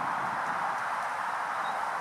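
Steady outdoor background noise: an even rushing hiss with no distinct events.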